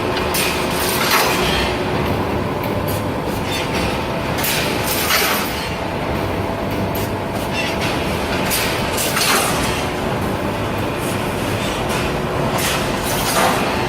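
Automatic rebar steel wire mesh welding machine running, a steady mechanical din with rapid clicks and a louder clatter about every four seconds as it works through its cycles.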